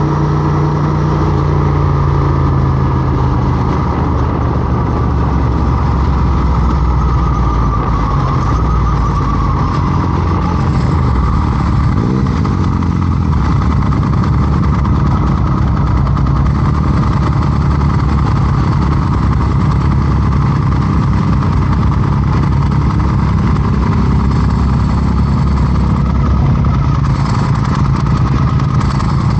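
Motorcycle engine running steadily, its pitch shifting only a little with no hard revving.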